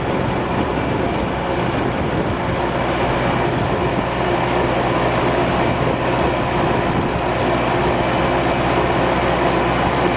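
Vintage tractor engine running steadily at an even speed, slightly louder from about halfway.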